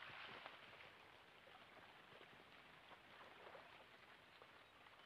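Faint wash of small ripples lapping at a shell-and-gravel shoreline, with a few faint ticks; otherwise near silence.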